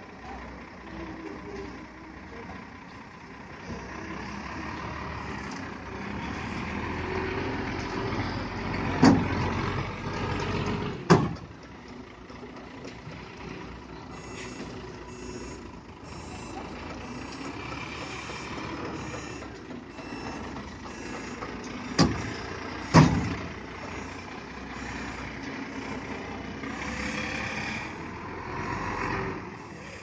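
Hino concrete mixer truck's diesel engine running steadily as it unloads concrete, cut through by four short, loud bursts, two around nine and eleven seconds in and two around twenty-two and twenty-three seconds in.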